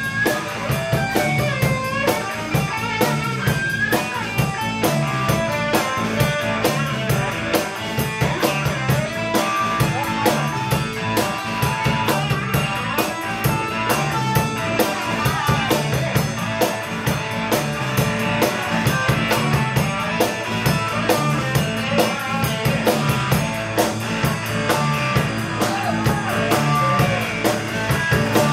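Live blues band playing an instrumental break: an electric guitar plays a lead line with bent notes over a repeating bass riff and a steady drum beat.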